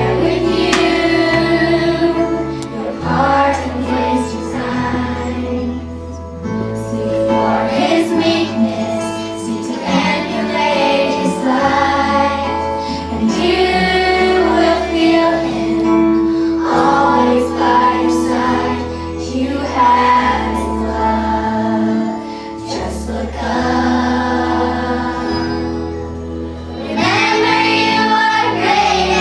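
Children's choir singing a song to instrumental accompaniment with a steady bass line, a new sung phrase swelling up near the end.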